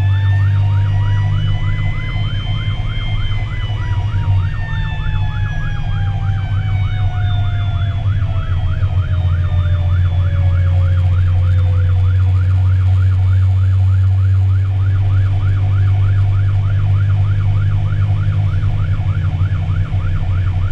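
Fire engine siren heard from inside the cab: an electronic yelp warbling rapidly up and down. A second, lower siren tone rises for the first few seconds and then slowly winds down over about ten seconds. The truck's engine drones steadily underneath.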